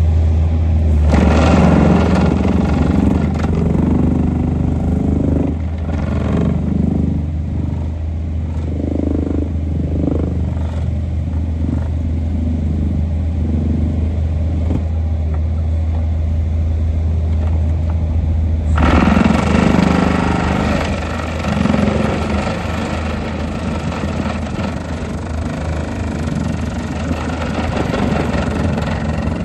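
ACDE ABV-450-2-RV excavator-mounted vibratory plate compactor running: a steady deep vibration hum with the excavator's diesel engine and hydraulics working over it. About two-thirds of the way through, the sound turns harsher and hissier.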